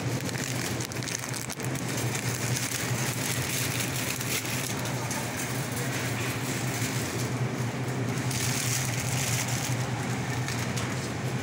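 Supermarket ambience: a steady low hum with a constant rustling hiss over it, from the produce section's refrigerated display cases and the shop around them.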